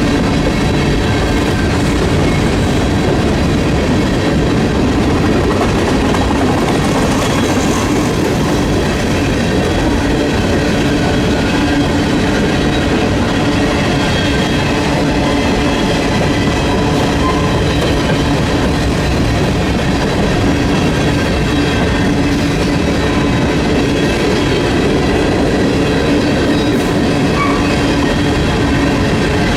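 Union Pacific freight train's cars rolling past close by: a steady, loud rumble of steel wheels on the rails that does not let up.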